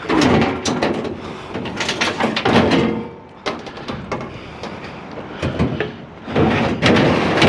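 Heavy sheet-metal scrap scraping and clanging as it is dragged and heaved up onto a trailer: repeated grinding scrapes and sharp knocks, easing off in the middle and picking up again near the end.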